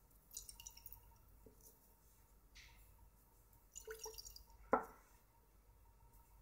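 Liquid sloshing in a glass conical flask as it is swirled by hand to mix the reactants, in short bursts near the start and again about four seconds in. A single knock follows as the flask is put down on the bench.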